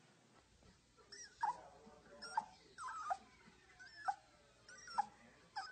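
A dog whining: a run of about six short, high-pitched whimpers, each dropping in pitch, starting about a second in.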